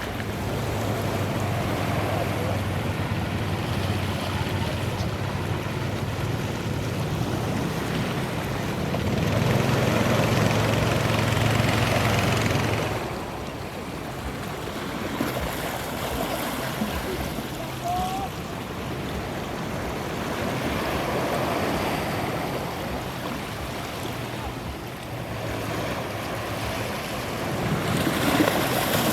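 Jet airliner on its landing approach, a steady rushing engine noise with a low hum that swells about ten seconds in and drops away at about thirteen seconds.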